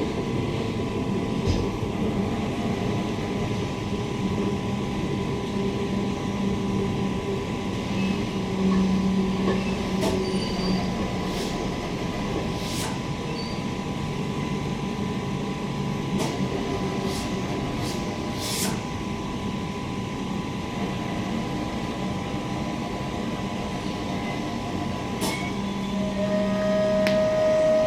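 Cabin running noise of a Queensland Rail SMU 260 series electric suburban train as it rolls into a station: a steady rumble and hum from wheels on rails, with scattered clicks through the middle. Near the end there is a short steady tone and the noise grows louder.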